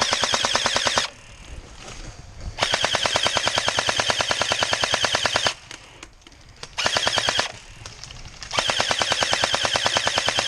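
Airsoft gun firing on full auto in four bursts, each a rapid, even rattle of shots. The longest burst runs about three seconds, and the last starts near the end and keeps going.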